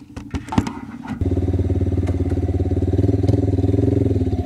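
A few knocks and clicks as the rider handles the motorcycle, then about a second in the engine of a Cafe 150 motorcycle starts and settles into a steady idle with a fast, even putter.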